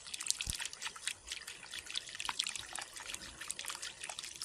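Garden water fountain trickling and splashing steadily, a busy patter of small drips.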